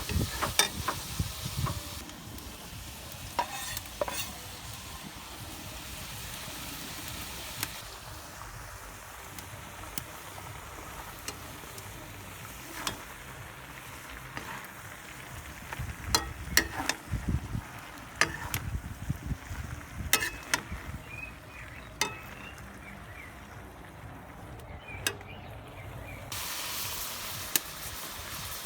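Meat and vegetables sizzling as they fry in a pot, with a utensil stirring and knocking against the pot in sharp clicks.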